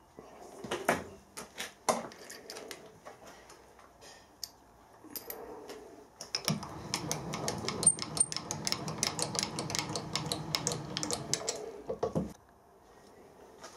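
Milling machine's spiral cutter cutting into a small metal part clamped in a vice: a steady cutting noise full of rapid ticks starts about six seconds in and stops suddenly about a second and a half before the end. A few scattered clicks and knocks come before it.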